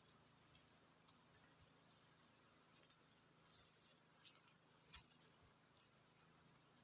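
Faint insect chirping, a cricket-like high trill pulsing steadily several times a second, with a few faint clicks.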